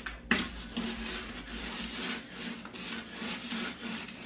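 Plastic rolling pin rolled back and forth over a zip-top plastic bag of María cookies on a table, crushing them into crumbs: a quick run of rough rubbing, crinkling strokes, with a sharper crunch about a third of a second in.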